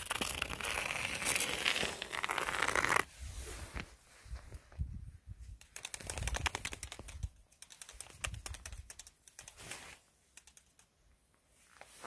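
Footsteps crunching through snow: a dense run of crunching for the first three seconds, then separate, quieter steps, with a short lull about ten seconds in.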